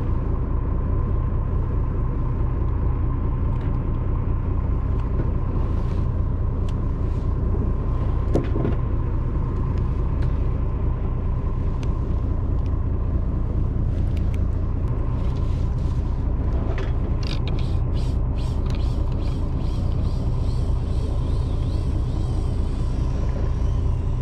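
Boat engine running steadily with a constant low rumble and a faint steady whine, with a few light clicks of tackle being handled, mostly near the end.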